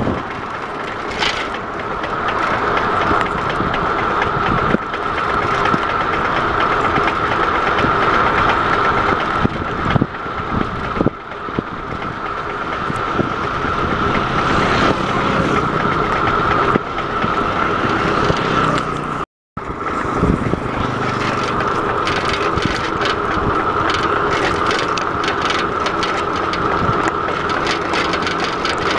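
Wind and road noise picked up by a bicycle-mounted camera while riding on tarmac, with a steady high whine throughout. The sound cuts out completely for a moment about two-thirds of the way through.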